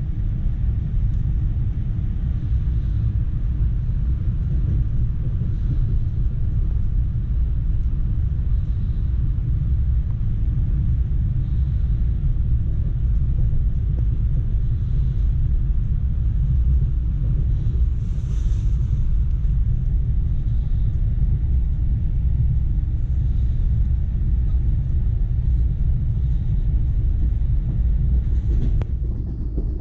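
Steady low rumble of an ES2G Lastochka electric multiple unit running along the line, heard from inside the passenger car, with a faint steady hum beneath it.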